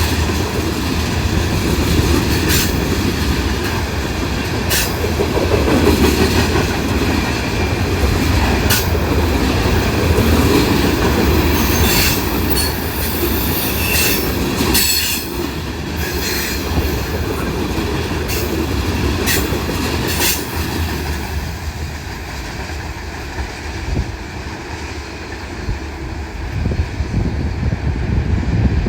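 Norfolk Southern freight cars rolling past on the rails: a steady low rumble and rattle with sharp wheel squeals and clicks every few seconds. Over the last several seconds the noise becomes quieter and duller.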